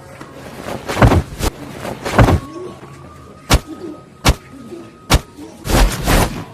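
Fight-scene punch and kick sound effects: a quick run of about eight sharp hits at uneven spacing, some led in by a swishing whoosh.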